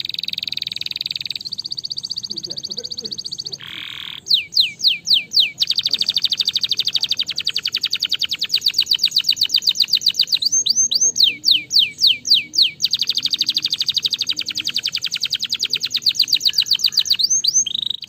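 Domestic canary singing: long, fast trills of rapidly repeated notes, twice broken by a run of slower notes that each sweep downward in pitch, with one more such sweeping note near the end.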